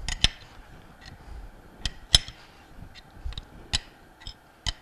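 Sharp metallic clicks and clinks, about eight or nine at uneven intervals, the loudest about two seconds in, as a wrench turns the forcing screw of a three-jaw bearing puller drawing a ball bearing off a pump shaft.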